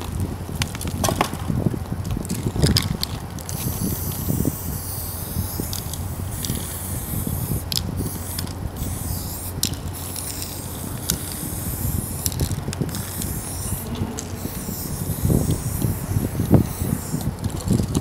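Aerosol spray-paint can hissing in a string of strokes with short breaks between them as letters are painted on a concrete wall, among scattered clicks and knocks.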